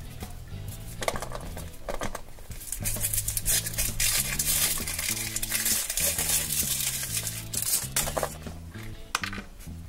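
Thin foil wrapper crinkling and tearing as it is peeled off a chocolate ball, a few crackles at first, then dense crinkling for several seconds, over background music with steady low notes.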